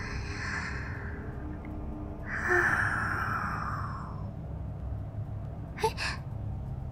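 A woman's breathy sighs, the loudest one about two seconds in and fading over a second or so, over a steady low ambience rumble. A brief click comes near the end.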